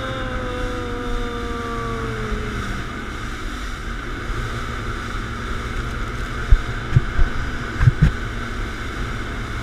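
Inflatable tour boat's outboard engines running at speed, with heavy wind buffeting on the microphone and a tone that sinks slightly and fades in the first two or three seconds. A few loud knocks on the camera come between about six and a half and eight seconds in.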